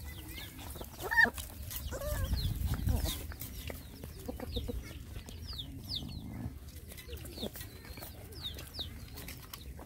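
Chickens clucking, with one louder call about a second in and many short, high, falling peeps throughout.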